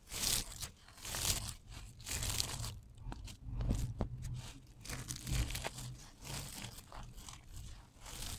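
Dry, crispy soap shavings crunching and crackling as bare hands squeeze and crush handfuls of them, in repeated crunches with a quieter stretch of lighter sifting about halfway through.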